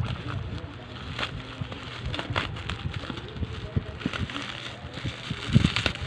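Handling noise from unboxing a pair of pliers: irregular clicks and light rustling of the tool and its packaging, with a few low thuds near the end.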